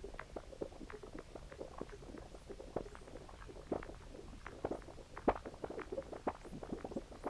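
Contrabass clarinet samples processed through an OBNE Float filter pedal and a Walrus Audio Fable. The result is a dense, irregular stream of short pops and blips, some with quick pitch sweeps, and no steady note.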